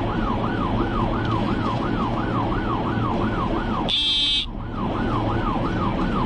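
Police car siren on a fast yelp, its pitch sweeping up and down about three times a second over steady engine and road noise, heard from inside the patrol car. About four seconds in, the siren breaks off for half a second while a short, high electronic tone sounds.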